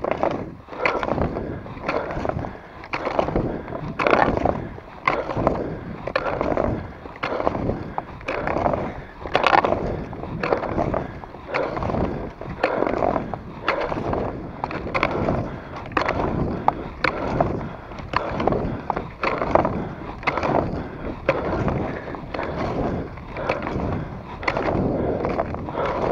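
Fischer cross-country skis skating over groomed snow: a rhythmic scrape-and-glide of the ski edges, about one stroke a second.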